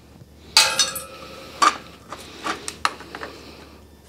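Metal hand tools and parts clinking against metal while a clamp is worked on an engine's exhaust up pipe: one loud, ringing clank about half a second in, then a few lighter clicks and taps.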